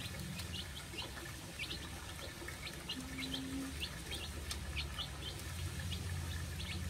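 A group of young chicks peeping continually while they feed: many short, high, falling cheeps, about three a second, over a low steady hum.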